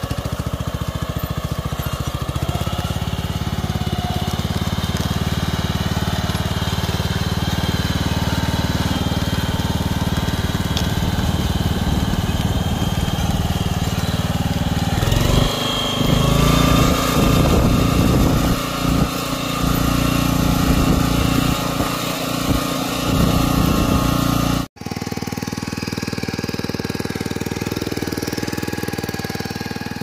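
Small engine of a tracked walk-behind cultivator running steadily as it pulls a plastic-mulch laying attachment along a potato row. About halfway through the sound grows louder and uneven for several seconds, then breaks off abruptly and goes on steadily at a lower level.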